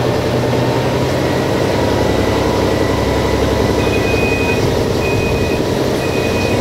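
Class 614 diesel multiple unit running steadily under way. From about four seconds in, a high, steady electronic beep repeats roughly once a second, each beep lasting about half a second.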